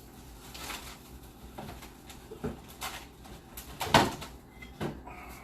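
Kitchen handling sounds: scattered light knocks and clicks, with one sharper knock about four seconds in.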